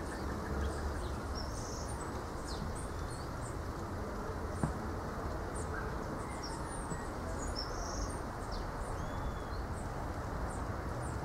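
Tropical outdoor ambience: a steady breeze rustling through the palms with a low rumble of wind on the microphone, and birds giving short high chirps many times over.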